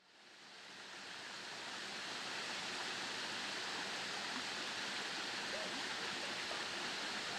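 Small forest stream splashing down a low rocky cascade: a steady rushing of water that fades up from silence over the first couple of seconds.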